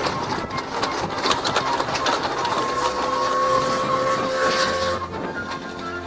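Narrow-gauge steam locomotive running with its train, wheels clicking over the rail joints, and its steam whistle sounding one steady note for a couple of seconds from about two and a half seconds in.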